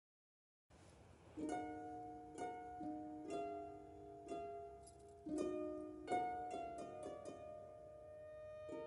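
Gentle background music of plucked-string notes in a slow melody, each note struck and then fading, starting about a second and a half in after a moment of silence.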